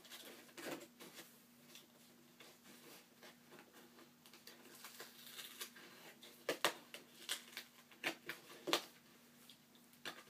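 A mailed package being worked open by hand and with the teeth: soft rustling and scraping, then a run of sharp clicks and snaps in the second half.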